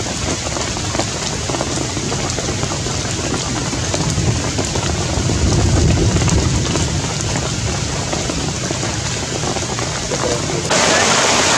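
Steady rain falling, an even hiss. It turns suddenly louder and brighter near the end.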